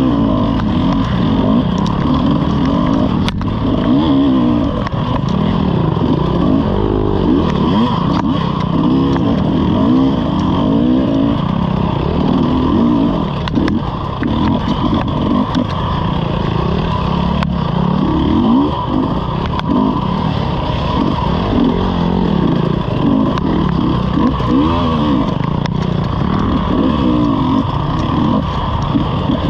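Dirt bike engine heard close up from the bike itself, revving up and down again and again as the throttle is worked over rough trail, with scattered sharp knocks.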